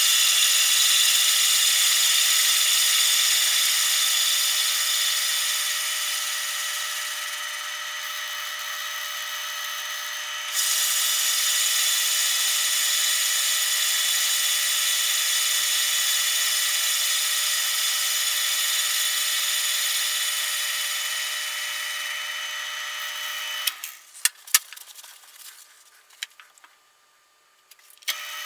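Metal lathe running with the tool bit cutting a taper into a metal bar: a steady high whine with several held tones over cutting noise, which eases off for a couple of seconds about a third of the way in and then comes back. Near the end the lathe stops, a few sharp clicks and knocks follow, and it starts up again at the very end.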